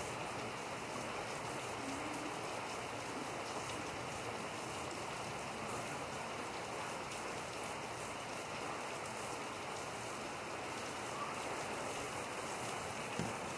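Heavy rain falling steadily on pavement and parked cars, a constant even hiss.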